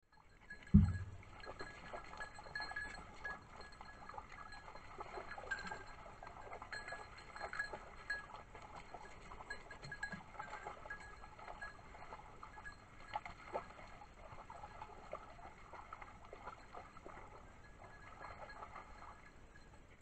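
Hunting dogs moving over a rocky stream bed close to the microphone: a heavy thump about a second in, then a steady scatter of clicks, scrapes and splashes from paws on rock and in shallow water.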